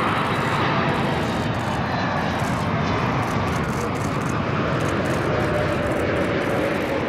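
Embraer E195-E2 airliner's Pratt & Whitney PW1900G geared turbofans running at approach power as it flies past low with its gear down. It is a steady, loud jet rush, with faint whining tones that slide down in pitch over the last few seconds as it goes by.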